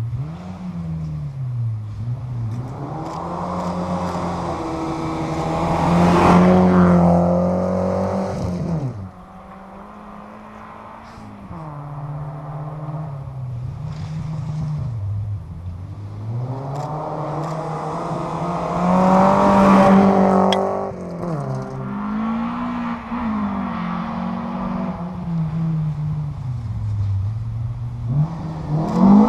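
Rally car engines revving hard and dropping through gear changes as cars pass at speed on a special stage, loudest about six and about twenty seconds in, with another car arriving near the end.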